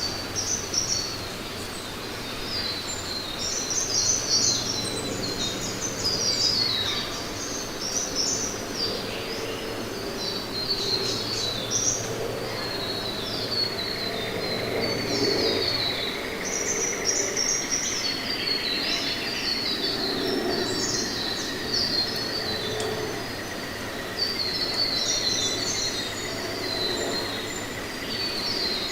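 Forest ambience full of songbirds: many short, high chirps and twittering phrases overlapping throughout. A steady high whine comes in about halfway and holds to the end.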